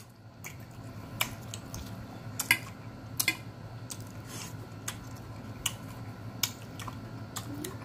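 Close-miked chewing with wet mouth clicks at irregular intervals, over a steady low hum.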